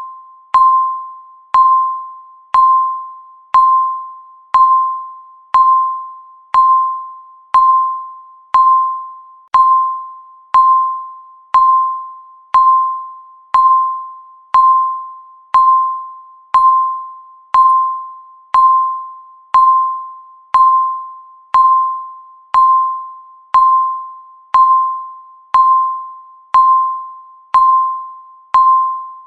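Countdown timer beeping once a second: each beep is a single mid-pitched electronic tone that starts sharply and fades away before the next, about 29 in a row, all alike.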